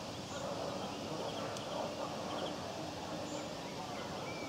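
Faint, short high-pitched peeps of Eurasian coot chicks, a few scattered calls over a steady background noise.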